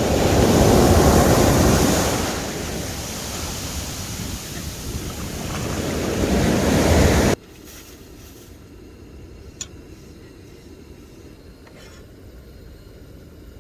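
Sea waves breaking with wind buffeting the microphone: a loud rushing that surges twice, then cuts off abruptly about seven seconds in, leaving a much quieter steady background with a single faint click.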